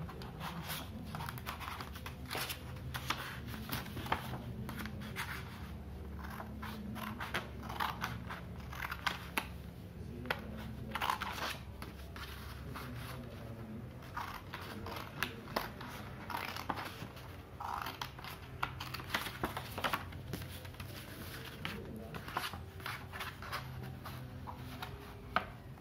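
Scissors snipping through a sheet of colour paper in short, irregular cuts, with the paper rustling as it is turned and handled.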